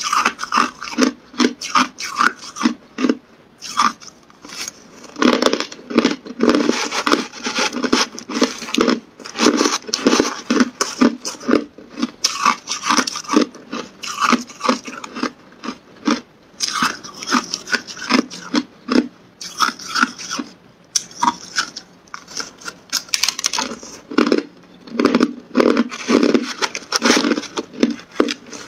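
Hard clear ice being bitten and chewed close to the microphone: rapid crisp crunches and cracks, several a second, with short pauses between bites.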